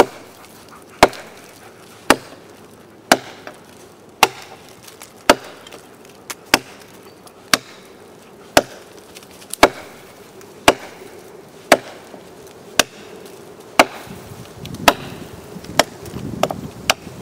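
Fehrman Final Judgment large fixed-blade knife chopping into a fallen log: sharp, evenly spaced chops about once a second, with two lighter quick strokes near the end.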